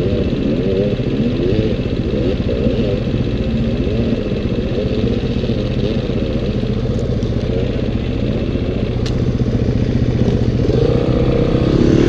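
Dirt bike engine running close by, its pitch wavering up and down, with the revs rising near the end.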